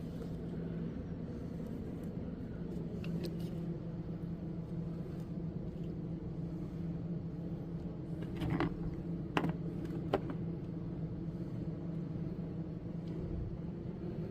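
A steady low mechanical hum, with a few sharp clicks and knocks about two-thirds of the way through.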